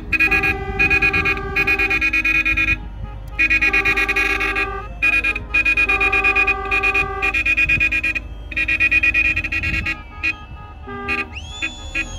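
Several car horns of different pitches honking together in a rhythmic pattern of short and long blasts from a convoy of cars. A brief rising and falling tone comes in near the end.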